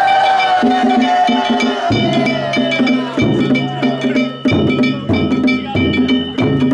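Danjiri hayashi festival music: rapid, continuous strikes of hand gongs (kane) over drums, with ringing metallic tones throughout. A high note is held through the first few seconds.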